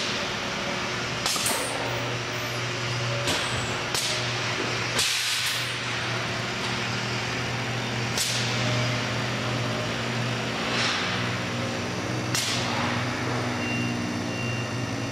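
Air tractor drive of a C2000 G-Rail bridge crane running under a steady low hum, with about seven short hisses of compressed air at irregular intervals, each starting sharply and fading.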